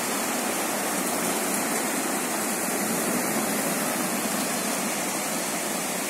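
Fast, turbulent mountain river rushing over rapids and riffles: a steady rush of water.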